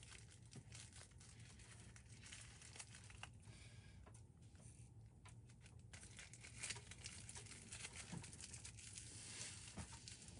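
Near silence with faint crinkling and rustling, a scatter of small crackles throughout.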